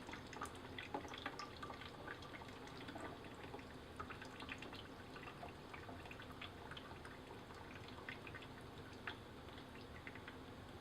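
Water dripping from an opened water pipe: faint, irregular drips.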